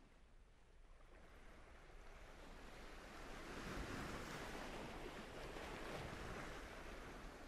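Faint rushing noise like surf or waves, swelling to its loudest about four seconds in and then easing off.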